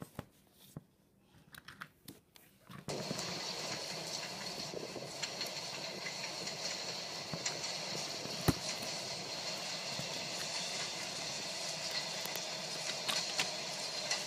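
A few small knocks and clicks, then from about three seconds in a steady hiss and rumble with a faint high whine: recorded New York subway train running noise, played as a sound effect.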